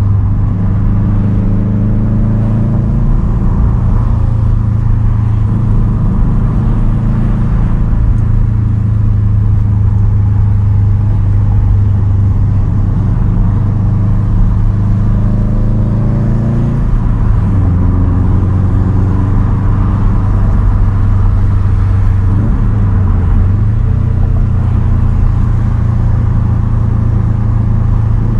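2010 Subaru WRX STI's turbocharged flat-four with a straight-piped single exhaust, cruising at steady revs. The engine note holds nearly steady, dropping slightly about 17 seconds in and dipping briefly around 23 seconds.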